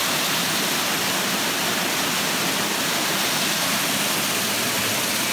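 Waterfall pouring over rock, a steady rushing hiss of falling water.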